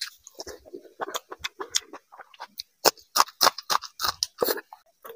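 Close-miked open-mouthed chewing of a mouthful of rice and fish curry: a quick run of smacking clicks, loudest and densest from about three to four and a half seconds in.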